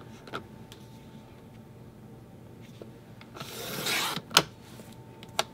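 A Creative Memories paper trimmer's blade carriage slides along its track about three and a half seconds in, a short scraping rasp as the blade cuts through patterned paper. A sharp click follows just after.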